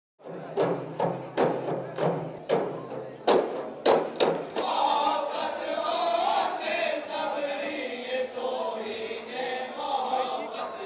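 Chahar bait, a sung folk poetry form: hand-struck frame drums beat about twice a second, then a chorus of men comes in singing over the drums about four and a half seconds in.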